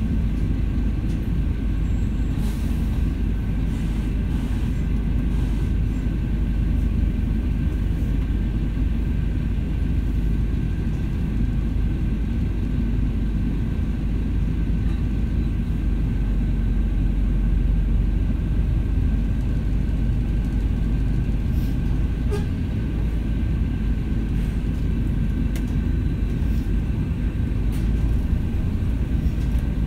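Volvo B5LH hybrid double-decker bus on the move, heard inside the cabin: a steady low rumble of drivetrain and road noise with a faint steady high tone through it.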